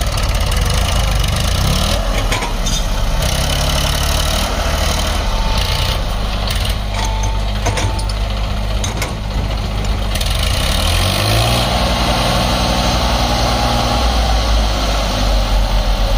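Massey Ferguson tractor's diesel engine running under heavy load as it hauls a loaded trailer through deep mud, revving up twice, the second time held high for a few seconds before dropping back near the end.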